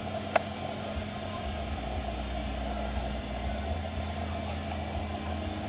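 Steady low mechanical hum of running machinery, with one sharp click about a third of a second in.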